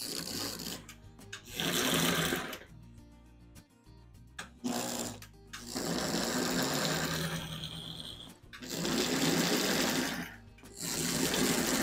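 Bare Marx toy-train locomotive motor chassis whirring on powered track in about six bursts of one to two seconds as power is switched on and off. The motor runs but the engine doesn't move: a wire wrapped around the center-rail pickup holds the wheels up off the rail.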